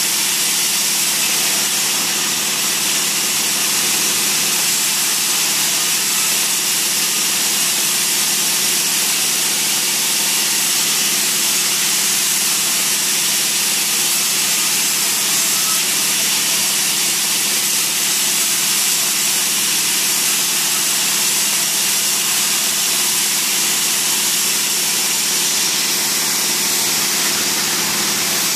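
Sawmill band saw running as small logs are fed through it: a loud, steady machine noise with a low hum, unbroken throughout.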